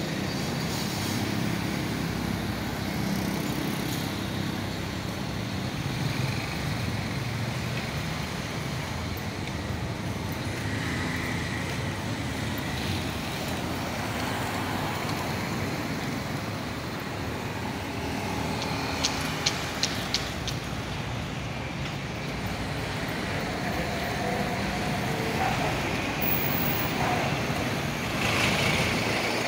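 Steady road traffic noise from vehicles running along the street, with a quick run of four sharp clicks about two-thirds of the way through.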